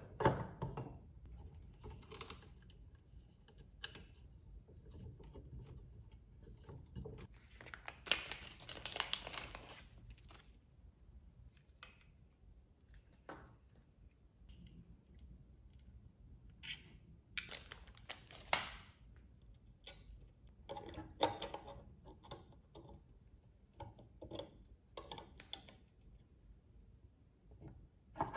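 Hand assembly of a 3D printer: scattered clicks and taps of small metal parts, screws and aluminium frame pieces being handled and fitted, with rustling of plastic parts bags and paper, in longer rustles about eight seconds in and again around seventeen seconds.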